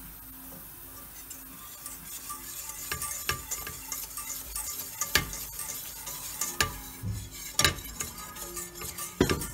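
A wire whisk stirring a butter-and-flour roux in a stainless steel pot, the roux sizzling as it toasts over the heat. The whisk scrapes and clicks against the pot, with the sharpest knocks in the second half.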